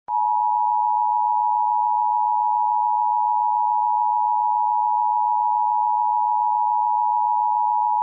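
Emergency Alert System attention signal: a loud, steady two-note electronic tone, held unbroken for about eight seconds, that starts abruptly and cuts off suddenly at the end.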